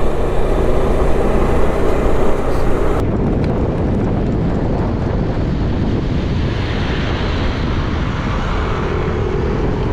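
Wind rushing over the microphone on a moving Suzuki Burgman 400 scooter, with the single-cylinder engine and road noise running steadily beneath. The sound changes abruptly about three seconds in, then the wind rush carries on.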